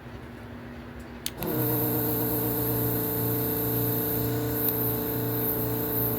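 Yihua 948 desoldering station's vacuum pump switched on with a click about a second in, then running with a steady hum and a high hiss of air drawn through the nozzle. The suction clears only part of the solder joint.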